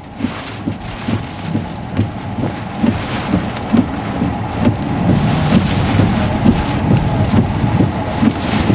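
Heavy rain and wind in the storm at a tornado's edge, with many irregular knocks and thumps, growing louder over the first few seconds and then holding steady.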